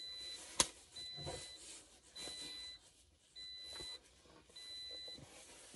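A car's interior warning chime beeping steadily, one high beep about every 1.2 seconds. A single sharp click comes about half a second in, and faint knocks and rustles from handling sit between the beeps.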